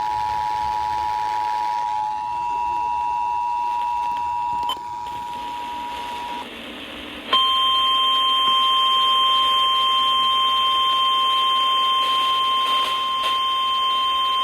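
Emergency Alert System two-tone attention signal sounding steadily, cutting off about six seconds in. After a brief gap a single, louder steady warning alarm tone follows, the kind NOAA Weather Radio sends to set off alert receivers.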